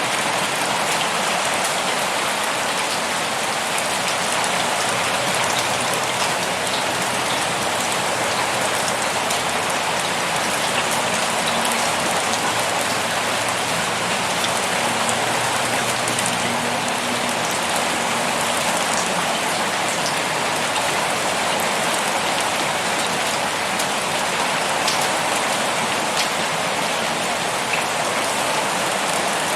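Steady, heavy rainfall: a dense, even hiss of rain on a surface, with individual drops ticking now and then.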